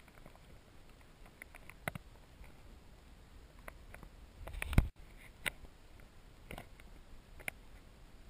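Scattered sharp clicks and ticks picked up through a submerged camera, with one louder, low thump a little before five seconds in.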